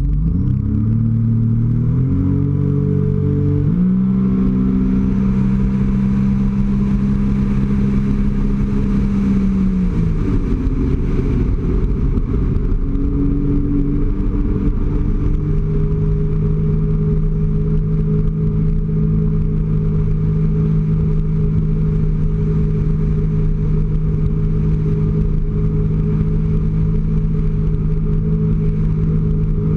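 2008 Sea-Doo RXT personal watercraft's supercharged Rotax 4-TEC three-cylinder engine, heard from on board: it revs up in steps over the first few seconds, holds high revs, eases off about ten seconds in, then runs at a steady cruise from about fifteen seconds on.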